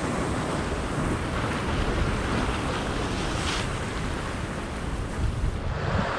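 Ocean swell surging and washing over a rock ledge, with a steady rumble of wind on the microphone and a brief hiss of whitewater about halfway through.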